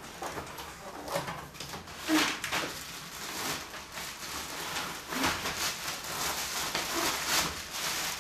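Clear plastic bag crinkling and rustling, with cardboard box flaps scraping, as a packaged tripod is pulled out of its box. Irregular crackling throughout, with louder swells about two, five and seven seconds in.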